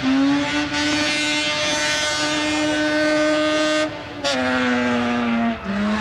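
Race car engine running at high revs with a steady, buzzy pitch. About four seconds in and again near the end it cuts out briefly and comes back lower, like upshifts under hard acceleration.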